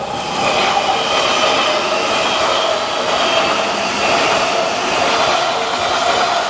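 Odakyu train passing over a level crossing: a loud, steady rush of wheels and running gear that swells in the first second and then holds. Underneath it the crossing's electronic warning bell keeps ringing at about two strikes a second.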